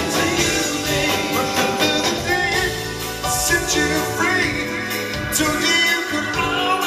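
Live pop music from a vocal group and band, with male voices singing over the instruments.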